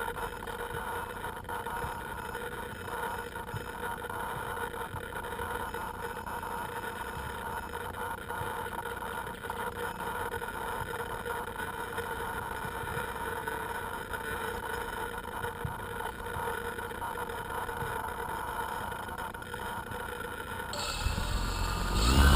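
Electric motors of an FPV model aircraft humming steadily with several fixed tones. Near the end they get louder and their pitch starts to rise as they spool up.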